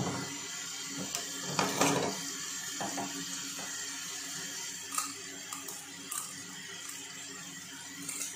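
Kitchen tap running steadily into a stainless steel sink, with a few sharp clicks and snips as kitchen scissors cut into a fish and it is handled on a plastic cutting board; the loudest handling noise comes about two seconds in.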